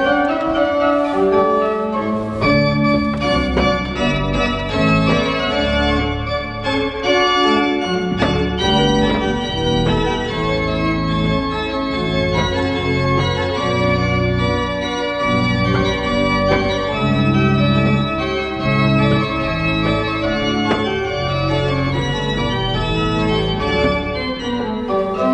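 Church pipe organ played solo: quick runs of notes over a moving bass line.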